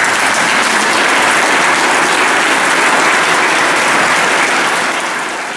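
Audience and choir singers applauding, a steady dense clapping that begins to fade near the end.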